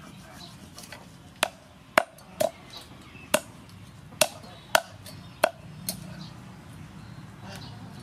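Knife blade knocking on a wooden chopping board while cutting up a whole fish: about seven sharp knocks, unevenly spaced, stopping a couple of seconds before the end.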